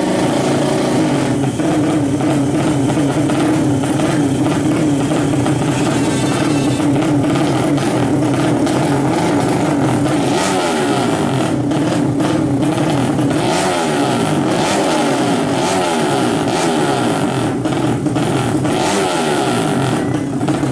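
Engines of two drag-race motorcycles running at the start line, a bored-up 150 cc Yamaha F1ZR two-stroke and a bored-up 200 cc Yamaha Jupiter four-stroke. The engine note is steady at first, then wavers up and down as the throttles are blipped from about ten seconds in.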